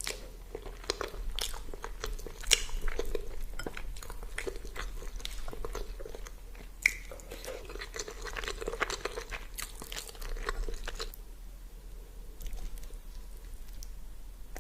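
A person biting and chewing food, with many sharp crunches that thin out about eleven seconds in.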